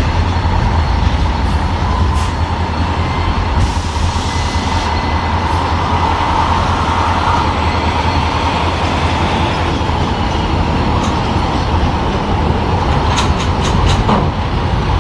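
CSX SD40-3 diesel-electric locomotive with a 16-cylinder EMD 645 engine, running steady and low as it pulls a freight train slowly past. A short air hiss comes about four seconds in, and a few sharp clicks come near the end.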